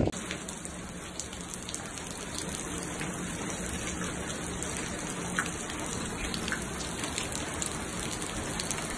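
Rain falling steadily: an even hiss dotted with fine pattering drops.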